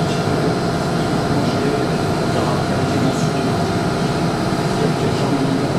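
Steady mechanical noise of workshop machinery running, even in level throughout.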